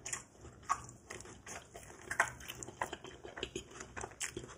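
Close-miked chewing of a fried egg roll with fufu inside: a bite near the start, then irregular small crisp clicks and crackles of the wrapper and mouth.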